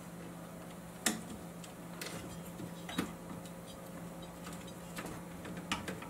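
Scattered small clicks and taps of a screwdriver against metal chassis parts and a circuit board during reassembly of a stereo receiver, the sharpest about a second in and several quick ones near the end, over a steady low hum.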